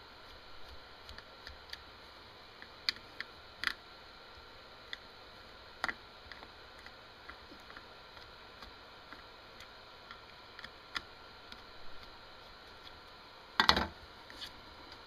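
Small screwdriver backing screws out of the bottom of an RC brushless ESC case: scattered light metal clicks and ticks, with a louder clatter about three-quarters of the way through.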